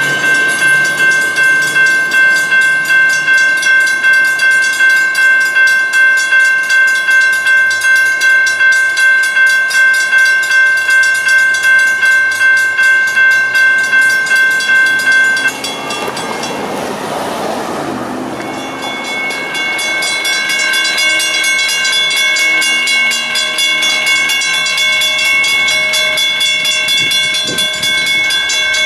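Railroad grade-crossing warning bell ringing rapidly, about three strikes a second. It cuts off suddenly about halfway through; after a brief rush of noise, a crossing bell rings on less distinctly.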